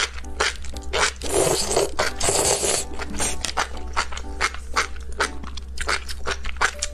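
Close-miked eating of a large mouthful of enoki mushrooms in thick chili sauce: a wet slurping stretch about one to three seconds in, then rapid wet mouth clicks and smacks of chewing.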